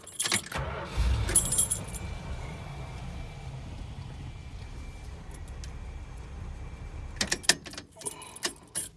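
Keys jangle in the ignition as a 1981 Dodge Sportsman Brougham van's V8 is started. It turns right on, catching within about a second, and runs at a steady idle for several seconds. Near the end the engine is switched off and the keys jangle and click again.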